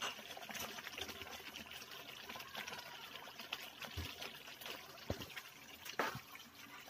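Chicken menudo in tomato sauce simmering in a nonstick frying pan on a gas burner, a faint steady bubbling and popping. A few knocks in the last seconds as a spatula stirs the pan, the loudest about six seconds in.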